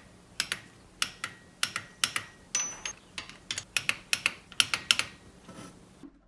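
Irregular run of sharp clicks and taps, about two or three a second and often in close pairs, typical of metal hand tools being worked on an engine.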